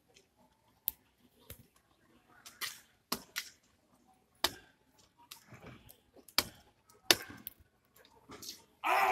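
Scattered sharp clicks and knocks with quiet between them. Near the end, a crowd suddenly breaks into loud cheering and shouting.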